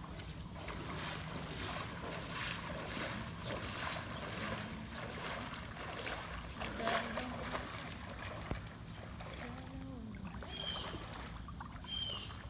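Floodwater sloshing and swishing as a person wades through it in rubber waders, with repeated splashing strokes of the legs pushing through the water.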